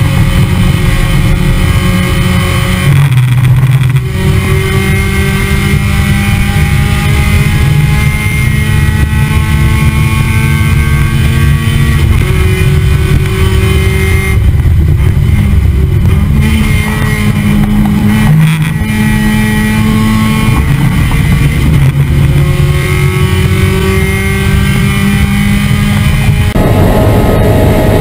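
In-car sound of a Mazda Miata race car's four-cylinder engine under hard acceleration, its pitch climbing through each gear and dropping sharply at the shifts. A second or so before the end it cuts abruptly to a different car's engine.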